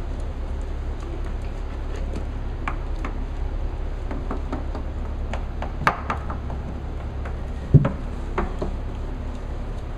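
Puppies' claws and paws clicking and tapping on a hardwood floor, with scattered knocks as they bump into toys. Two louder knocks come about six and eight seconds in, over a steady low hum.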